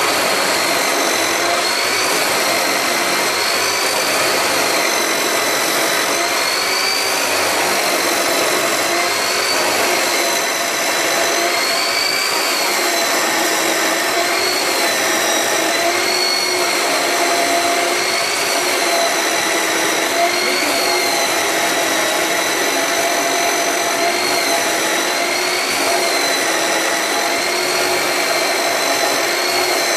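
Electric abrasive cut-off saw cutting through a steel bar: a steady grinding hiss with a high motor whine that wavers up and down about every two seconds.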